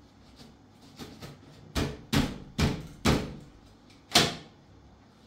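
Chipboard top cover of a washing machine being knocked into place on the cabinet: a few light clicks, then five sharp knocks over about two and a half seconds, the last one the loudest.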